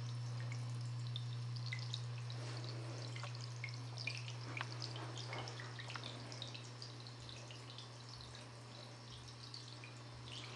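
Water trickling and dripping along shallow clay channels, a scatter of small drips and splashes, over a steady low hum.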